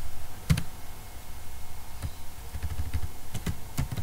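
A few scattered clicks from a computer mouse and keyboard being used to select code, the loudest about half a second in, over a low background rumble.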